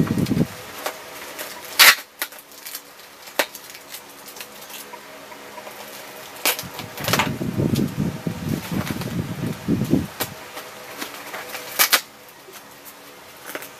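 Bubble-wrap packaging being handled and pulled open by hand: rustling and crinkling, with a few sharp crackles, the loudest about two seconds in and again near the end.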